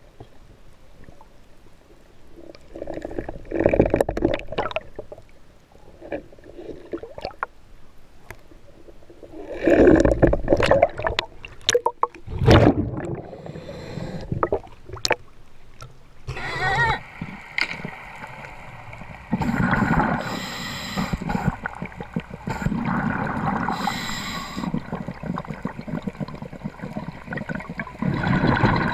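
Underwater sound through a diver's camera: bursts of water rushing and gurgling from the diver's movement, with sharp clicks and knocks while the wooden speargun is handled and loaded. About halfway through this turns into a steady rush of water noise with a faint hum in it.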